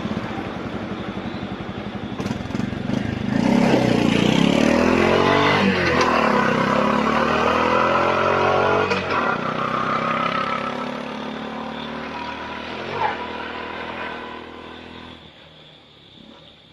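Bajaj RE auto-rickshaw's single-cylinder engine on its stock exhaust, idling, then accelerating hard: the pitch climbs, breaks twice as it shifts up, and the sound fades away.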